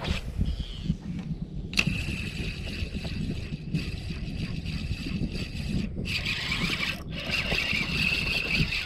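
Spinning reel being cranked, its gears whirring steadily as line is retrieved after a cast, following a click about two seconds in and pausing briefly about seven seconds in, over a low rumble.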